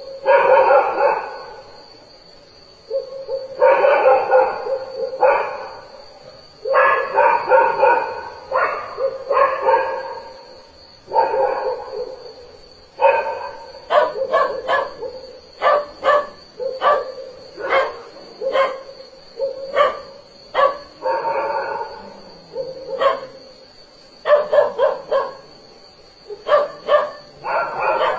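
A dog barking over and over in runs of barks, the barks getting shorter and sharper from about halfway. A faint steady high tone runs underneath.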